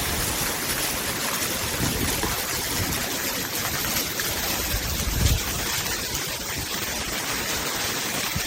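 Water running steadily down a rain chain, a continuous even splashing rush.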